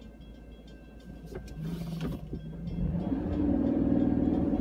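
Railroad crossing bell ringing in rapid, even strokes, stopping about a second in as the gates lift. Then a car engine speeds up from a stop, rising in pitch and getting louder before it levels off.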